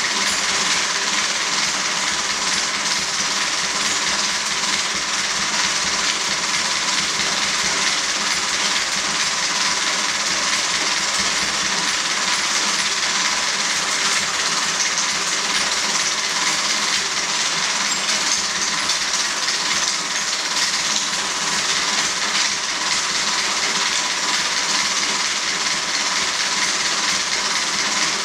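35 mm film projector running steadily, a continuous mechanical noise with a strong hiss and a faint steady tone.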